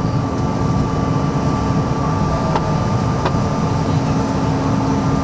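Cabin noise of a Bombardier CRJ-900 climbing out after takeoff: its rear-mounted twin turbofan engines running at climb power over a dense rush of airflow. A low rumble is overlaid by a steady hum and a higher, thin whine.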